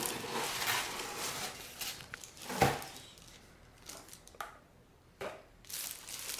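Packaging being handled as the unit is lifted out of its box: irregular rustling and crinkling with scattered clicks and knocks. The loudest knock comes about two and a half seconds in, and the handling then goes quieter, with a few short clicks.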